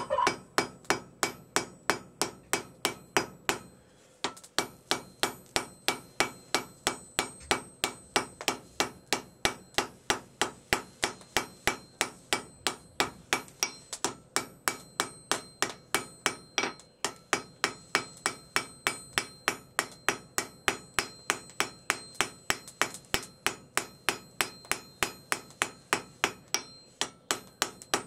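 Hand hammer striking a red-hot railroad-spike blade on an anvil in a steady rhythm of about three blows a second, with a brief pause about four seconds in and a faint high ring hanging over the blows. The smith is forging the blade's peaked spine (iori mune).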